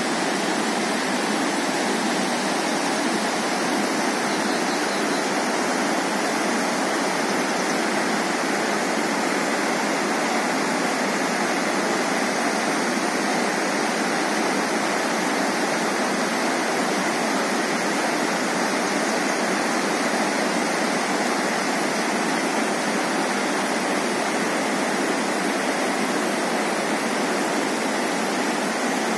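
Steady, even rushing noise with no low rumble and no changes, like fast-flowing water.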